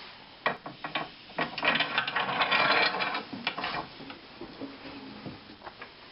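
Hand assembly of lathe parts: scattered clicks and knocks as parts are handled and fitted, with a dense rasping, rattling stretch of a second or more about a second and a half in.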